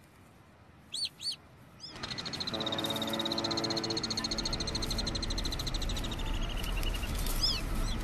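Alpine swifts calling: a few short chirps, then a long rapid trill lasting about five seconds that falls in pitch near its end, with more short chirps after it.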